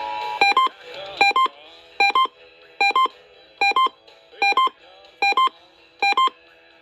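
Electronic alert beeps from a broadcast emergency alert test: a short double beep repeated eight times, about every 0.8 s. It opens with a brief steady two-note tone.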